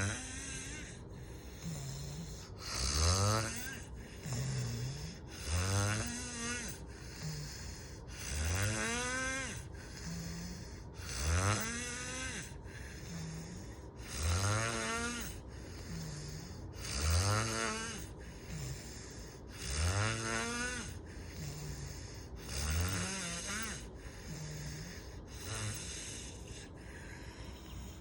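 Loud snoring in a regular rhythm, one snore about every three seconds, each rising in pitch as it goes. A softer, lower breath sound falls between each pair of snores.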